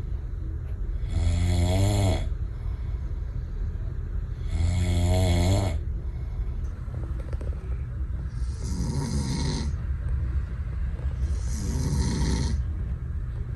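A person snoring in their sleep: four long, rasping snores about three seconds apart.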